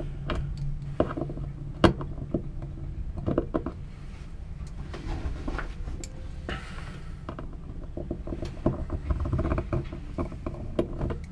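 Clicks, small knocks and scraping of a screw being driven in by hand while mounting a part inside a cramped sailboat locker, with a longer scrape about five seconds in.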